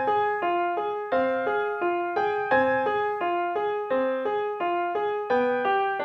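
Background piano music: a steady, flowing run of single struck notes, several a second, each fading before the next.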